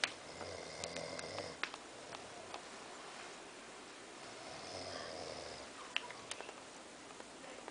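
A sleeping man snoring heavily: two long snores, each over a second, about four seconds apart, with a few short sharp clicks between them.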